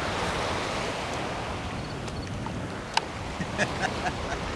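Steady wash of wind and shallow bay water around the waders, with a single sharp click about three seconds in.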